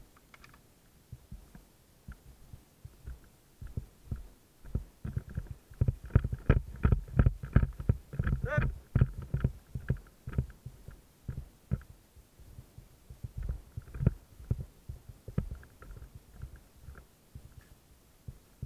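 Irregular dull thumps of quick footsteps on the forest floor, with gear knocking against the microphone, heaviest in the middle. A brief pitched squeak rises and falls about halfway through.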